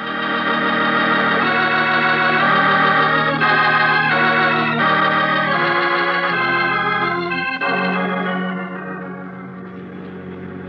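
Organ music bridge between scenes of a radio drama: a run of sustained organ chords, changing about every second, that then drops to a softer held chord in the last few seconds.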